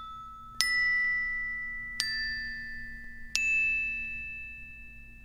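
Bell-like chime notes of a logo jingle: three struck notes about a second and a half apart, each ringing with several pitches and slowly fading, over the dying ring of a note struck just before.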